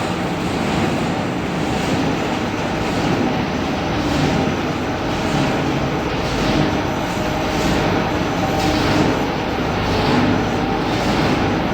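Continuous charcoal carbonization furnace running, a steady, loud mechanical noise of its motors and blower.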